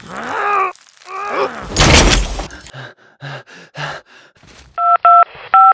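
Edited sound effects: a couple of short sliding tones, then a crash with breaking, a scatter of small clicks and knocks, and three touch-tone telephone keypad beeps near the end as a number is dialled.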